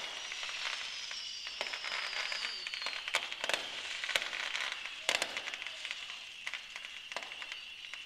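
Aerial fireworks bursting well off in the distance: irregular crackling and popping, bunched into busier clusters about three and five seconds in, over a steady high-pitched whine that slowly falls in pitch.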